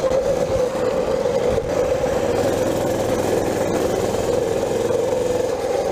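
Mini bike's small engine running at a steady throttle while riding, its pitch holding level, over a steady rushing noise.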